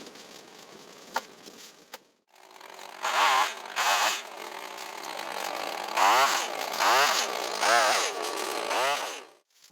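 A two-stroke chainsaw engine, revving up and down about six times in a row, each rev a quick rise and fall in pitch. Before it, about the first two seconds hold only a faint hiss with a few small clicks.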